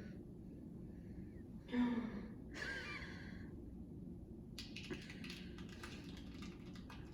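A short gasp-like breath about two seconds in, followed by another breathy sound. From about halfway on there is a faint crackle of small clicks.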